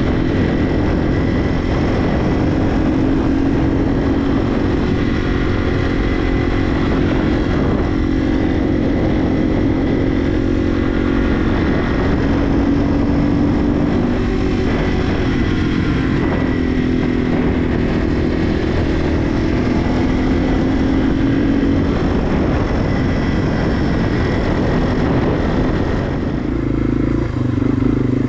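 Yamaha TW200's air-cooled single-cylinder four-stroke engine running steadily at road cruising speed, heard from the rider's seat. Near the end the engine note changes abruptly to a lower, slower beat.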